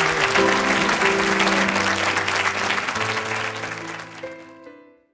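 Studio audience applauding over music with held notes, both fading out near the end.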